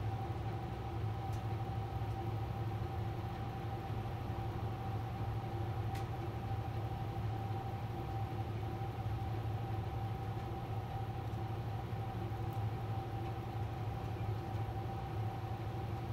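Steady low background hum with a faint constant whine above it and a few faint ticks.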